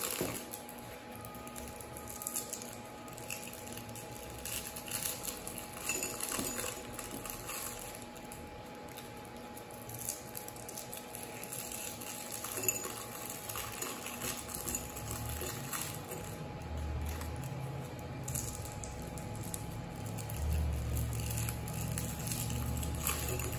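Rockets candy rolls being unwrapped and the small tablets dropped by hand into a glass partly filled with candies: wrapper crinkling and scattered light clicks as the candies land. A low rumble joins in the second half.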